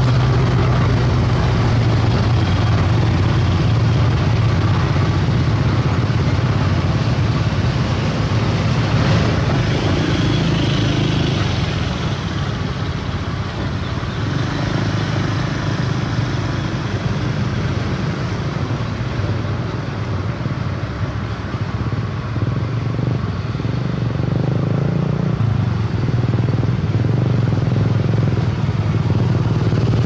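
Diesel engines of heavy self-loader trucks, loaded with excavators, running at low speed: a steady low drone that eases off in the middle and swells again near the end.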